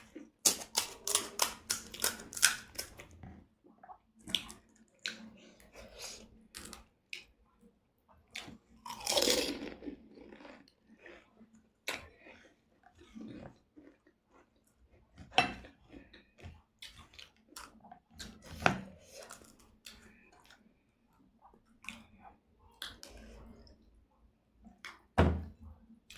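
Close-miked eating: a quick run of sharp crunching bites in the first few seconds, then scattered chewing and mouth sounds, with one longer noisy burst about nine seconds in.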